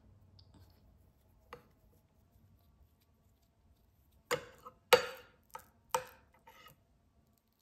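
A metal spoon knocking against dishes, about five sharp clinks with a short ring over two seconds or so, starting about four seconds in after a near-quiet stretch of hands handling soft dough.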